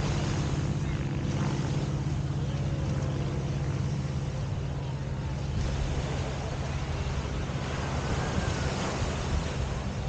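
Beach ambience: a steady low rumble under a hiss of wind and surf.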